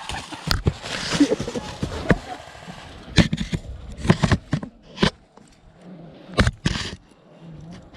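About a dozen irregular sharp cracks and knocks, several coming in quick pairs.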